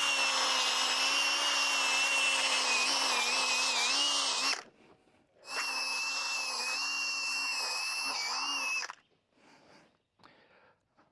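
Small electric power tool with a drill-type motor running at a steady high speed in two runs: one of about four and a half seconds, then after a short pause one of about three and a half seconds. The pitch wavers slightly near the end of each run, as under load.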